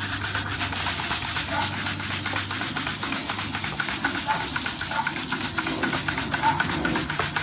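Crushed malt pouring into hot water in a cooler mash tun while doughing in: a steady rustling hiss of falling grain, full of tiny ticks from the kernels.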